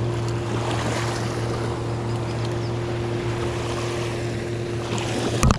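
A boat's outboard motor hums steadily, one constant low drone with a higher tone above it, over wind on the microphone and small waves at the water's edge. A brief sharp knock comes near the end.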